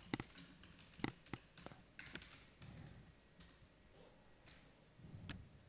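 Faint, irregular clicks of a computer keyboard being typed on, a few keystrokes scattered over several seconds.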